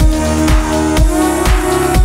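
Background electronic dance music with a steady kick drum about twice a second under held synth notes.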